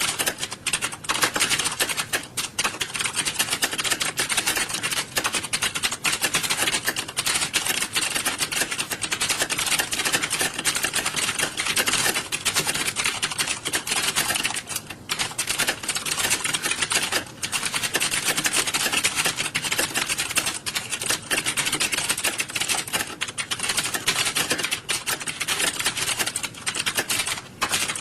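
Many computer keyboards being typed on at once, as in a typing-test exam hall: a dense, continuous clatter of key clicks with no pauses of more than a moment.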